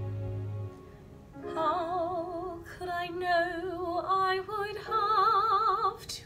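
A woman singing solo in a classical, operatic style, with a wide vibrato on held notes, coming in about a second and a half in. Before that, a held chord from the backing track ends under a second in.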